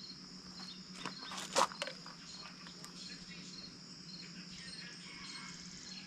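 Crickets chirping in a regular pulse a little under twice a second over a steady high insect hiss, with one sharp knock about a second and a half in.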